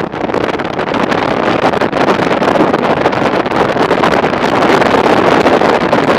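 Steady rush of wind over the microphone of a camera on a Honda ST1300 motorcycle at road speed, swelling slightly in the second half.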